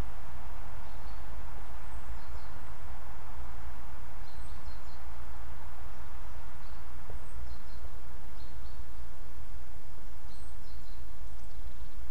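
Steady woodland background noise with a low rumble, and short faint high bird chirps scattered throughout.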